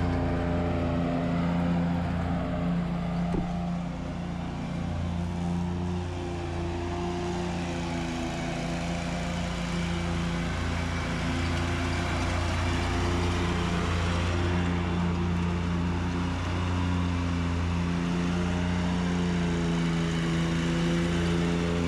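Stand-on zero-turn lawn mower engine running steadily at mowing speed, a constant hum with small rises and falls as the machine moves.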